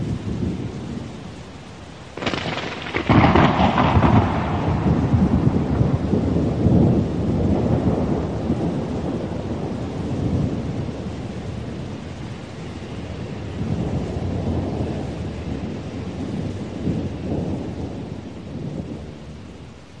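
Thunderstorm: a sudden, loud thunderclap about two seconds in, then long rolling rumbles of thunder that swell and fade several times, over rain falling steadily.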